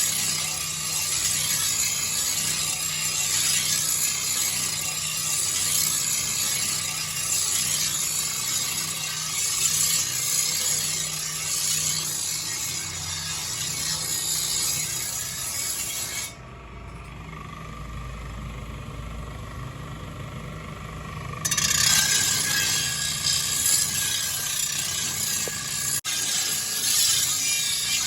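Steady, dense mechanical rattle of blacksmith workshop work, cut off abruptly about two-thirds of the way through by a quieter stretch of low hum lasting about five seconds, then resuming.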